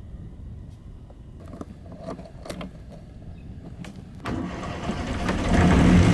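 A few clicks and rattles of keys, then about four seconds in the sailboat's inboard engine is cranked by its starter and catches, quickly running at a steady idle near the end.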